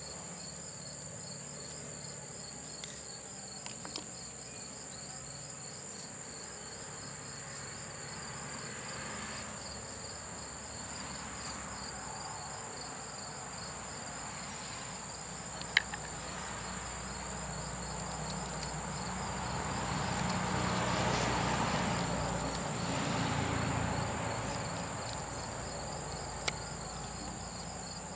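Insects chirping steadily: a continuous high trill with a faster pulsing chirp beneath it. A broad rushing noise swells up and dies back a little past the middle, and a sharp click stands out about halfway through.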